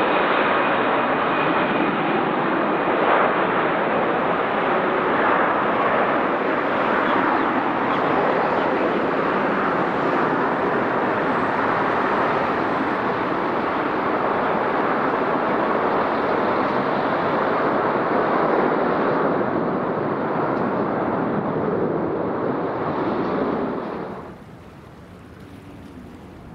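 Jet airliner's engines at takeoff thrust heard close by, a loud steady roar. It cuts off suddenly near the end, leaving wind on the microphone.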